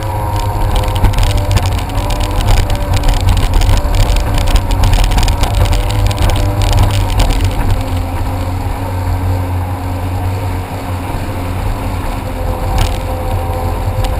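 Jet ski engine running steadily under way: a deep rumble with a whine above it that shifts a little in pitch. Many crackles of buffeting on the microphone run over it.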